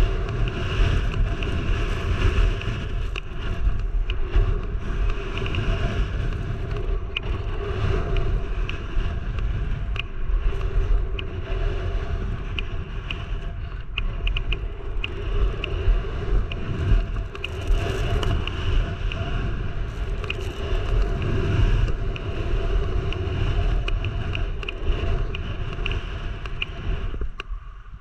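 Strong wind buffeting the camera microphone, a loud, gusting rumble, over the hiss of sliding downhill on wind-packed snow. It drops away suddenly at the very end.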